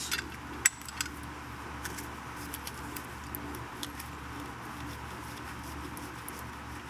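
Light metallic clicks and clinks of hand work on the belt tensioner's 13 mm support bolts and tools, with one sharp click well under a second in and a few fainter ticks after, over a steady low background hum.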